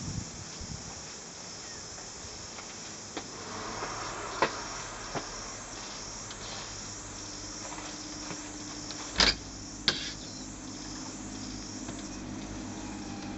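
Insects chirping in a steady, high, pulsing chorus, with a few light taps. About nine seconds in come two sharp clicks of a door handle and latch, and a low hum enters about halfway through.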